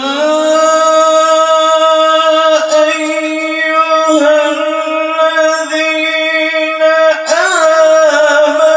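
A man chanting the Quran in slow tartil style, drawing out one syllable as a long held note with a brief quavering turn about seven seconds in.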